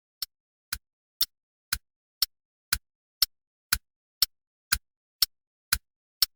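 Evenly spaced sharp ticks, two a second, with silence between them, getting louder over the first second or so.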